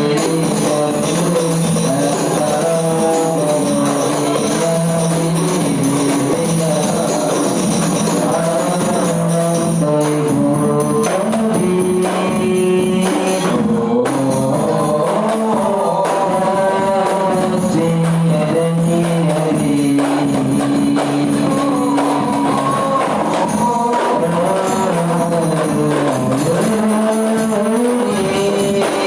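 Rebana frame drums beating a steady rhythm under voices singing a melody together.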